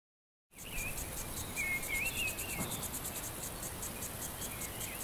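Outdoor ambience starting about half a second in: an insect chirping in a fast, even rhythm, with a bird singing short warbling phrases over it twice.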